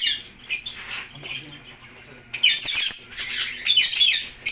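Lovebirds squawking and chattering in rapid, high-pitched calls: a brief burst at the start, a lull with a few faint calls, then a loud bout of calling from a little past the middle until just before the end.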